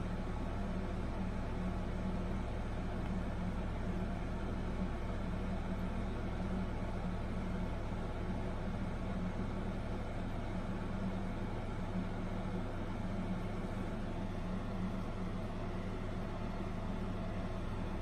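Casablanca Lady Delta ceiling fan running steadily, its motor giving a constant low hum with the rush of air from the spinning blades.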